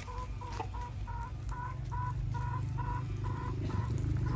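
A chicken clucking: a run of short, even notes, about two a second, over a low steady hum.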